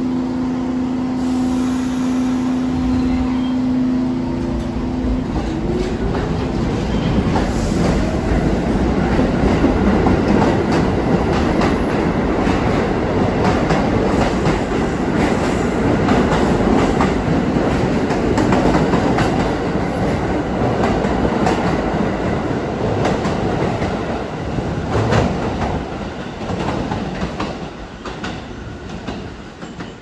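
Pullman Standard R46 subway train starting away from the platform. A steady hum gives way about five seconds in to the rising whine of its traction motors picking up speed. Then comes the clatter of wheels over rail joints as the cars pass, fading away near the end as the train leaves.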